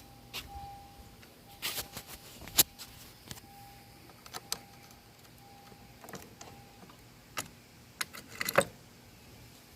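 Sharp clicks and clinks of parts and tools being handled at a car's steering wheel, a handful of them, the loudest about two and a half seconds in and again near the end. A faint steady tone cuts in and out beneath them and stops about seven seconds in.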